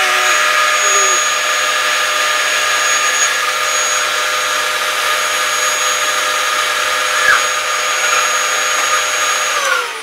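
Dyson vacuum cleaner running steadily, a loud hiss with a high whine on top. Near the end it is switched off and the whine falls in pitch as the motor spins down.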